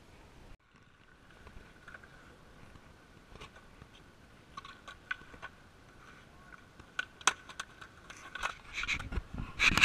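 Skateboard on concrete: wheels rolling, with scattered sharp clacks of the board. Near the end comes a louder grind and clatter as the board slides along a low ledge.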